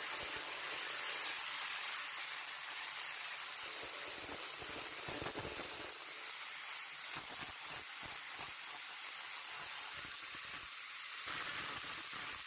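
Angle grinder with an abrasive disc grinding and cleaning the steel of an axe head: a steady harsh hiss of disc on metal over the grinder's high whine.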